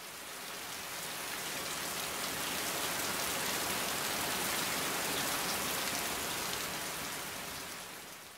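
Steady rain, swelling up over the first few seconds and fading away near the end.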